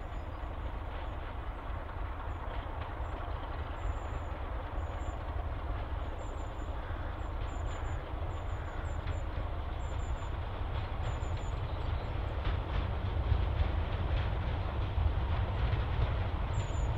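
Class 33 diesel-electric locomotive, its Sulzer eight-cylinder engine rumbling low, approaching with its coaches and growing steadily louder as it nears. A small bird chirps repeatedly in short high notes.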